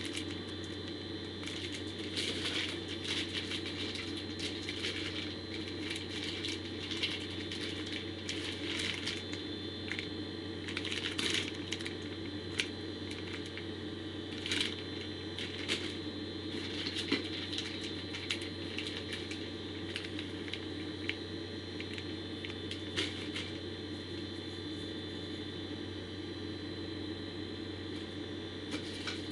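Plastic packaging bags crinkling and rustling in short, scattered bursts as items are handled and unpacked, over a steady background hum.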